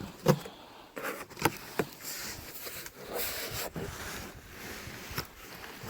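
Cardboard shipping box being opened and handled: rustling and scraping, with several sharp knocks at irregular times.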